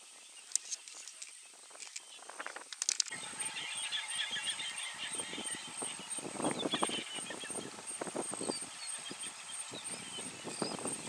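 Outdoor bush ambience: birds chirping over a steady high whine. About three seconds in it grows louder and fuller, with rustling and soft thuds.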